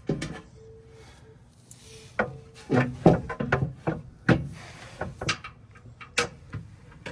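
A run of knocks, clanks and scraping as a skid plate and its bolts are handled and fitted by hand under a vehicle, with the busiest stretch about two to four seconds in.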